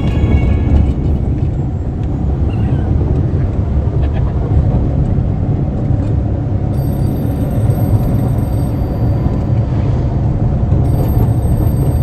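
Steady low rumble of car engine and road noise heard from inside the cabin of a moving car.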